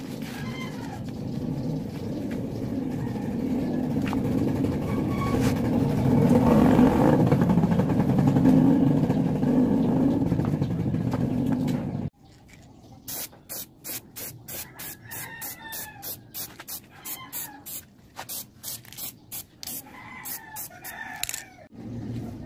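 Rag rubbing over a brake drum to clean off dust and grease: a steady scrubbing noise that swells toward the middle and stops abruptly about halfway through. After that comes a quick run of sharp clicks and knocks from the phone camera being handled.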